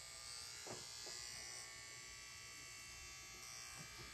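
Cordless electric hair trimmer buzzing faintly and steadily as it shapes up the edges of a man's beard, with a few light knocks as it touches the face.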